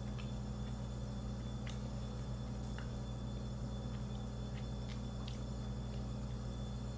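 Steady low hum of room tone, with a few faint soft clicks from chewing a bite of avocado toast with fried egg.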